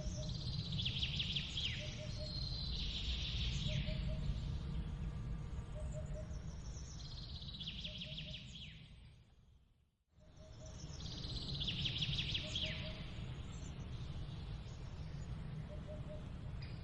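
A songbird singing short trilled phrases, each ending in a quick downward sweep, a few seconds apart, over a steady low rumble. A faint low double note repeats about once a second. About two-thirds of the way through, everything fades out briefly and comes back.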